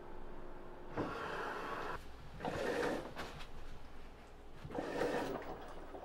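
Washing machine filling with water in three rushing spurts, up to about a second long, some beginning with a light knock as the solenoid fill valves open and slam shut. This is the slight water hammer left after spring-piston water hammer arrestors were fitted to the supply lines.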